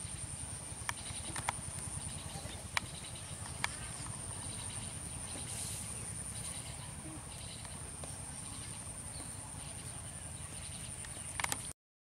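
Outdoor rural ambience: a steady high-pitched insect drone over a low rumble, with a few sharp clicks scattered through it. The sound cuts off abruptly near the end.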